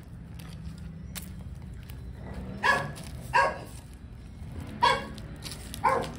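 A dog barks four times, single short barks spaced about a second apart, through the second half.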